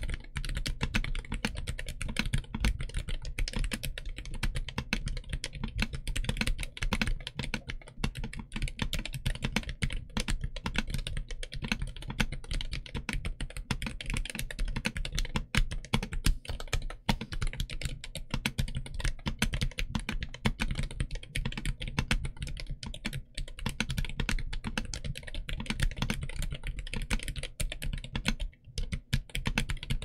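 Fast, continuous typing on a stock Royal Kludge RK N80 low-profile mechanical keyboard with LoPro Jerzi Brown switches and low-profile ABS keycaps: a dense, steady patter of keystrokes that pauses briefly near the end.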